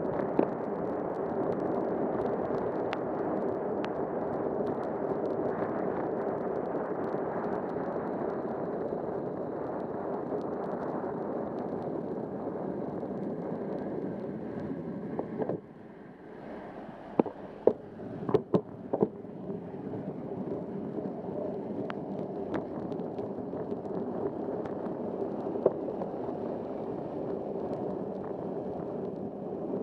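Bicycle riding through rain on a wet road: a steady hiss of tyres on the wet pavement mixed with rain and wind on the bike-mounted camera. About halfway it drops briefly and a few sharp knocks sound, then the hiss builds again.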